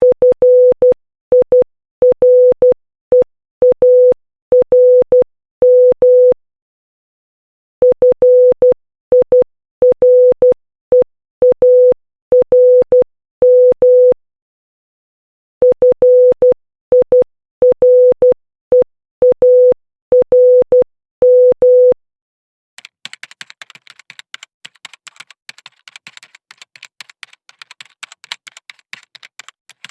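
Morse code sent as a single steady beeping tone keyed in dots and dashes, in three runs separated by short pauses. After the last run, about three-quarters of the way through, it gives way to a fainter, dense crackle of small clicks.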